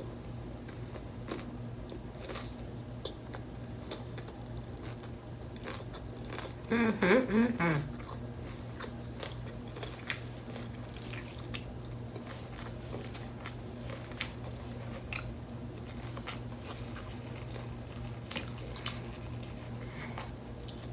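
Close-miked chewing and biting of crunchy beef tacos, with a steady run of small crunches and mouth clicks. A short voiced sound from the eater about seven seconds in.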